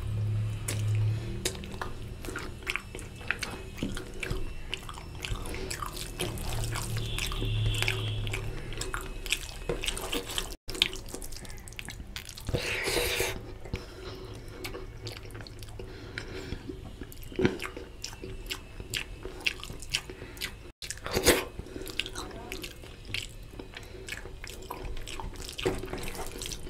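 Close-miked eating of oily mutton curry with rice by hand: chewing, sucking and lip-smacking, with wet squelching of fingers mixing rice and curry on a steel plate. The sound drops out for an instant twice.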